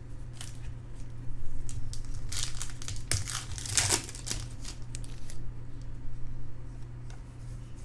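Baseball card packs and cards being handled: wrapper crinkling and rustling with light clicks, busiest about two to four seconds in, over a steady low hum.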